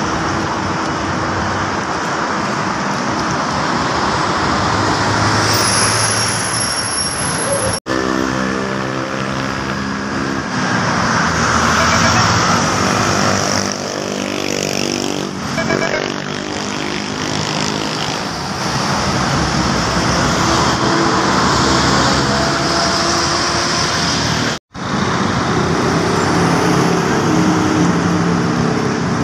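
Road traffic with large diesel coaches and cars passing by. In the middle a Volvo B7R coach's diesel engine passes close, its pitch rising and then falling. There is a brief high whine about six seconds in, and the sound breaks off twice.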